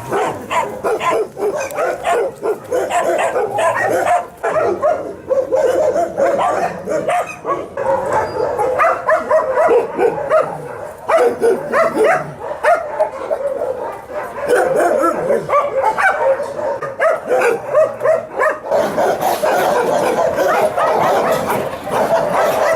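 Many shelter dogs barking and yelping together without a break, their barks overlapping into one continuous chorus.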